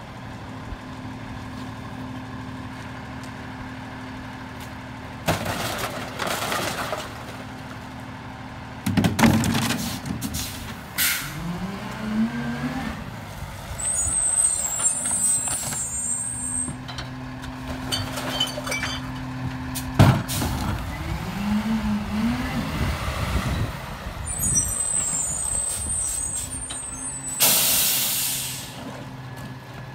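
Freightliner M2106 rear-loader garbage truck working a route. Its diesel engine idles and twice revs up and back down, with a few loud knocks, short high brake squeals, and a sharp air-brake hiss near the end.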